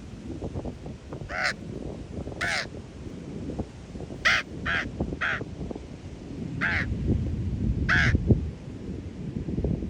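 Common raven giving seven short, harsh calls, three of them in quick succession about four to five seconds in, over a steady low rumble of wind.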